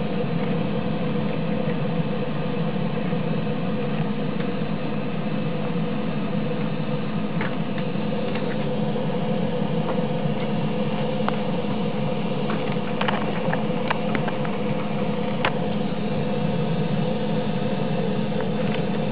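Automatic wire cutting and stripping machine running: a steady mechanical hum, with a few faint clicks now and then partway through.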